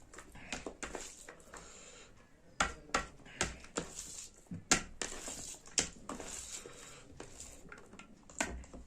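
Close-miked eating sounds of a person chewing a mouthful of rice and saag: wet mouth clicks and smacks, a quick cluster of sharper ones in the middle.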